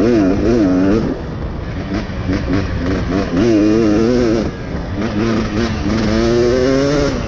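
Dirt bike engine being ridden, its pitch rising and falling again and again with throttle and gear changes, over a steady rush of wind and road noise.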